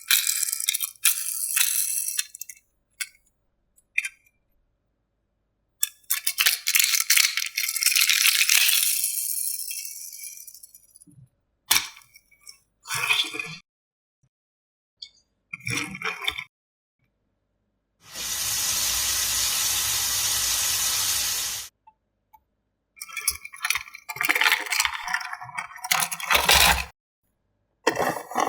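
Diecast toy cars and plastic playset pieces rattling and clinking in short, separate bursts. About two-thirds of the way through there is a steady hiss lasting about three and a half seconds.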